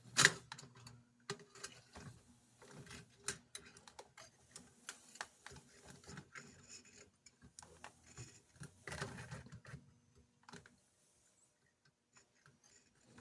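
Faint, irregular small clicks and scrapes of hand tools and fingers working on a metal toy-train truck as the old wire is pulled out. Under them runs a low steady hum that stops near the end.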